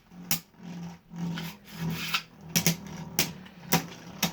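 Two Beyblade Burst tops spinning and grinding against each other in a plastic stadium: a steady low whir with a rasping scrape, broken by a series of sharp clacks as they collide.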